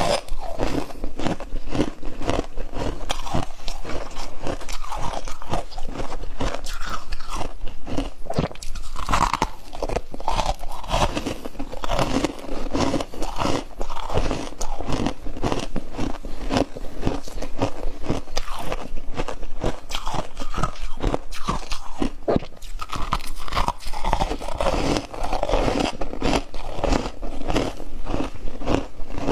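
Close-up crunching as a person bites and chews powdery freezer frost, one crunchy bite after another without a break.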